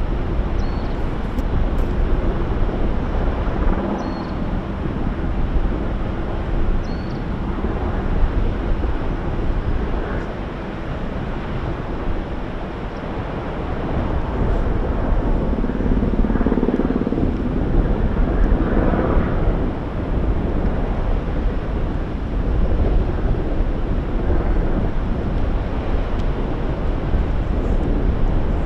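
Kīlauea's Fissure 8 lava fountain giving off a steady, deep rumbling roar that swells a little about halfway through.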